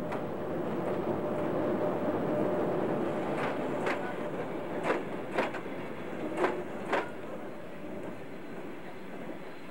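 A passenger train running on rails: a steady rumble, and from about three seconds in, three pairs of sharp clacks as the wheels cross rail joints.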